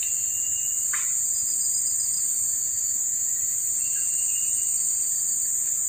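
Steady high-pitched drone of forest insects, unbroken and even in level, with a faint thin whistle near the start and again about four seconds in.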